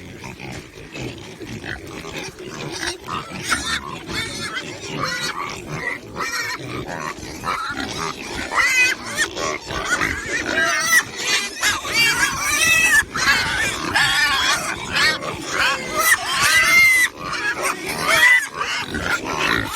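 A group of pigs grunting and squealing, many short calls overlapping, growing busier and louder about eight seconds in.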